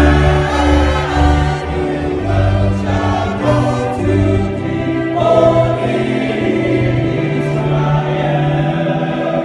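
Church choir singing a hymn, accompanied by an electronic keyboard playing held chords over a bass line.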